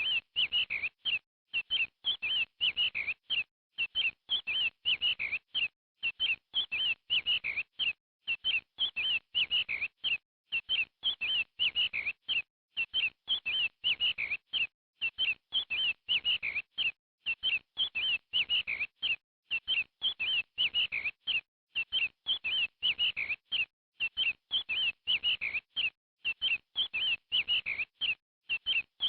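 Chicks peeping continuously: short, high chirps in quick clusters, repeating in an even, looped-sounding pattern.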